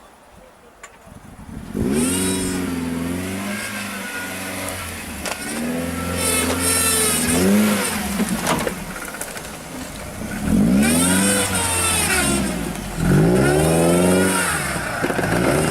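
Off-road 4x4's engine revving hard, its pitch rising and falling in several surges, after a quieter first two seconds.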